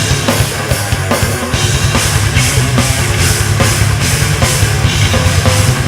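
Live heavy rock band playing loud, with a pounding drum kit, strong bass and regular cymbal hits about two to three a second; no singing.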